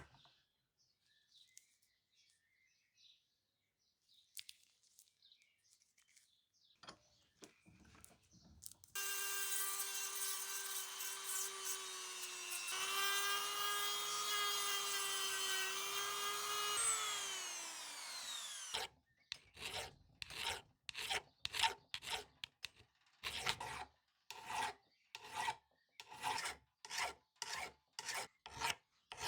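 A small electric power tool runs at a steady pitch for about eight seconds, then winds down with falling pitch. It is followed by regular back-and-forth strokes on wood, about two a second, like hand rasping or sawing.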